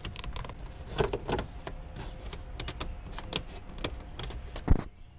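Small clicks, taps and rustles of a boost gauge and its vacuum hose being handled and fitted against a car's plastic dashboard trim, with one louder knock near the end.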